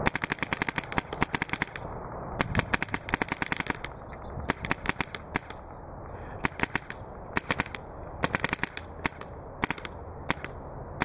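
Planet Eclipse Etek 3 AM electro-pneumatic paintball marker firing fast strings of shots, many a second, broken by short pauses between strings.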